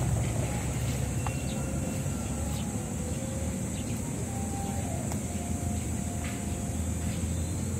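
Steady low outdoor rumble with a steady high hiss over it, a few faint short chirps and some light clicks.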